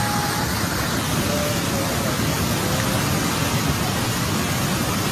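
Steady, loud rush of fast-flowing floodwater, an even roar with no breaks.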